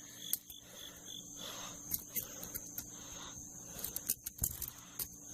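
Insects chirping steadily outdoors, with scattered small clicks and taps.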